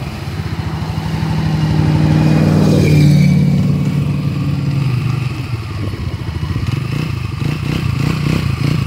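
A 200cc trike scooter's engine running, its note swelling to a brief rev about three seconds in and then settling back to a steady run.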